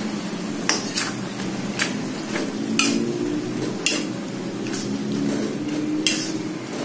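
Metal spatula stirring and turning katuk leaves and baby corn in a wok, scraping and striking the pan several times at irregular intervals.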